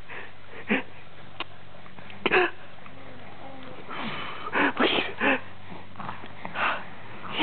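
Short breathy huffs and wheezy breaths, spaced out, with a cluster of them about four to five seconds in.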